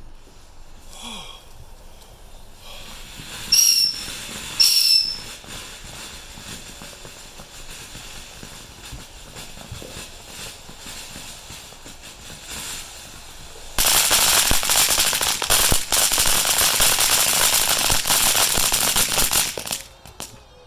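Fireworks: two short, shrill whistles about a second apart, then a firework hissing and crackling steadily for about six seconds before cutting off near the end.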